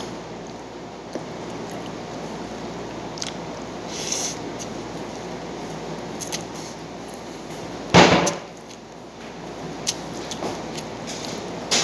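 A person eating rice noodles by hand: small wet clicks and a short slurp over steady room noise, with one loud sharp bang about eight seconds in.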